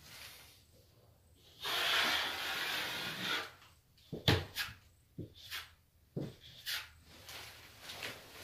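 Plastering knife scraping plaster across plasterboard: one long swipe about two seconds in, then a scatter of sharp clicks and taps from the blade.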